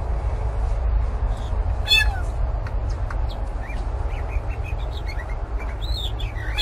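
Blue jay giving meow-like calls that sound like a cat, one about two seconds in and another near the end, with soft short chirps in between, over a low rumble.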